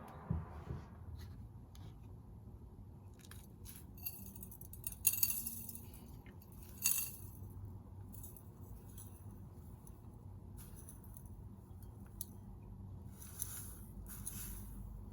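Scattered light clicks and taps with glassy clinks, as things are handled in and against a glass vase aquarium. The louder clinks come about five and seven seconds in, over a faint low hum.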